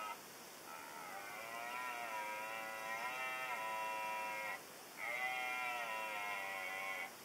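Red deer stag roaring, the rutting call: two long roars, the first close to four seconds and the second about two seconds, with a short break between them.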